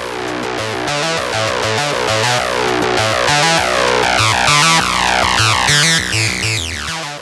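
Background music: an electronic track over a repeating bass line, with falling sweeps in the higher notes in the second half.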